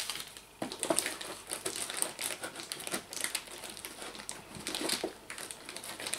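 Plastic packaging bags crinkling and rustling as they are handled, with irregular crackles and small clicks against cardboard.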